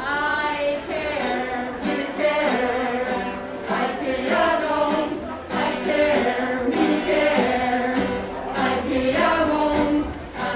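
A protest song sung into a microphone to a strummed acoustic guitar, with other voices singing along.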